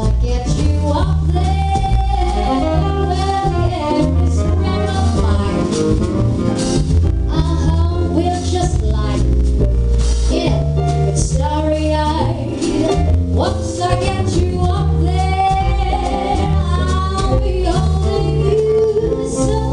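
A woman singing with a live jazz combo: a sung melody over a walking low bass line, drums with cymbals, and keyboard.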